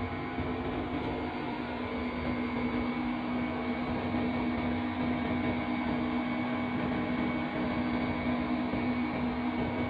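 Steady drone inside the cab of a GEU-40 diesel-electric locomotive under way, with a constant low hum and the train's running noise and no change in pitch or level.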